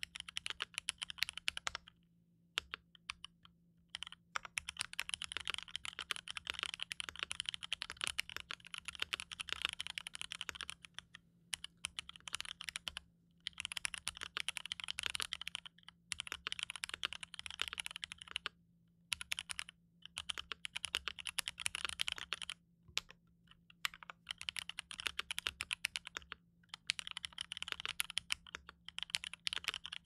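Steady, fast typing on a mechanical keyboard fitted with Cherry MX Black Clear-top (Nixie) linear switches: a rapid stream of keystrokes bottoming out, in runs broken several times by short pauses.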